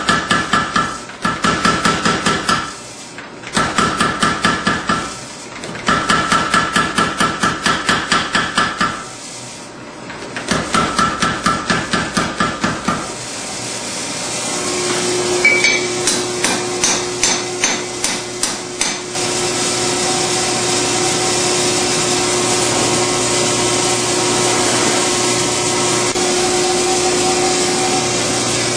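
Power hammer rapidly pounding a red-hot steel knife blank on the anvil, several blows a second in bursts of two to three seconds with short pauses. About halfway through the blows weaken and stop, and a steady rushing noise with a low hum takes over.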